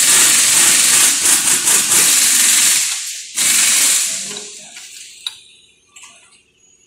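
Loud hiss of air from the shop press as it is worked to push the hub out of a rear brake drum for a wheel-bearing change: one long hiss of about three seconds, a short break, then a shorter hiss that fades away. A single click follows.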